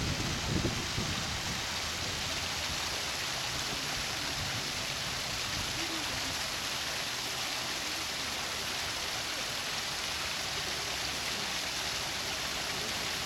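Small artificial waterfall splashing over rocks into a pool: a steady, even rush of falling water. A few low gusts of wind buffet the microphone near the start.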